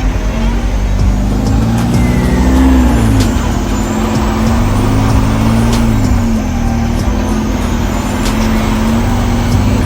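Logging truck's diesel engine pulling steadily on a gravel logging road. Its pitch dips and climbs back about three seconds in and again about six seconds in, as the revs change.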